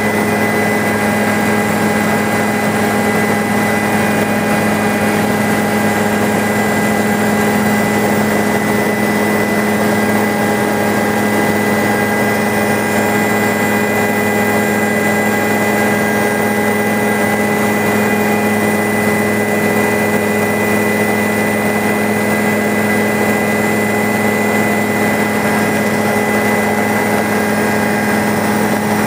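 Helicopter's engine and rotor running steadily in flight, heard from on board: a constant loud drone with several steady humming tones.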